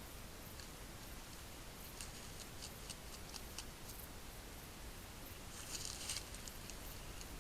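Faint scattered clicks and rustles over a steady hiss, with a louder burst of rustling about six seconds in.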